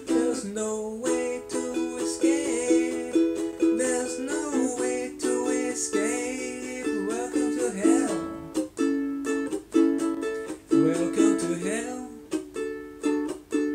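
Ukulele strummed in steady chords. At times a man's voice sings wordless lines over it.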